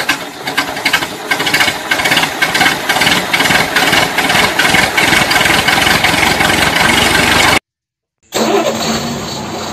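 A tractor-style engine sound running with a rapid, even pulse, most likely an engine sound effect laid over a toy tractor being pulled along. It cuts off suddenly about three-quarters of the way in, and after a brief silence a steadier engine hum starts up.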